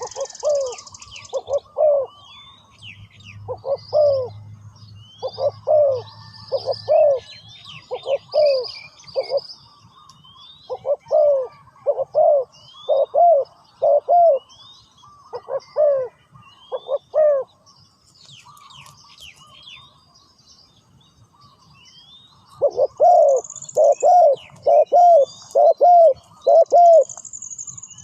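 Spotted dove cooing: short phrases of low, arched coo notes repeated again and again, with a pause of a few seconds before a final longer phrase. Small birds chirp faintly and high-pitched in the background.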